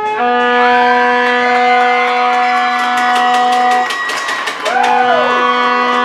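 A horn sounded for an ice hockey goal: one long steady blast of about three and a half seconds, then a second blast starting near the end. Cheers and a run of claps sound under it.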